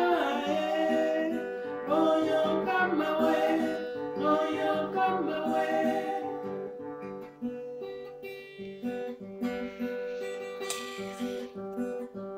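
Acoustic guitar playing chords, with a voice singing a wavering melody over it for about the first half; after that the guitar goes on alone.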